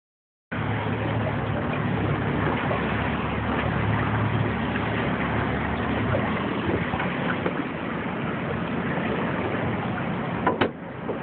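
A boat's motor running steadily under a constant rush of wind and water noise, with a low hum most marked in the first few seconds. A single sharp knock comes about ten seconds in.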